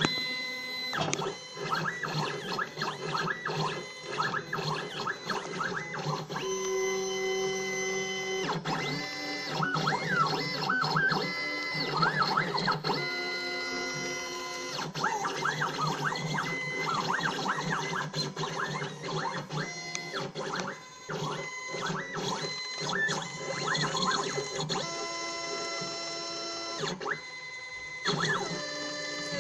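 Stepper motors of a homemade CNC pen plotter driving its lead screws while it draws lettering. The whine keeps changing pitch: it holds steady tones for a second or two at times and warbles up and down at others, with brief breaks between moves.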